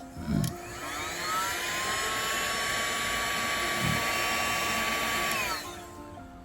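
Hot-air blower warming the glue under a phone's ribbon cable: its motor spins up to a steady whine over about a second, runs evenly, then winds down near the end after being switched off.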